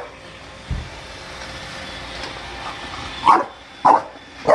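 A dog barking three times, about half a second apart, near the end, over the steady hum of a running robot vacuum. A single low thump comes about a second in.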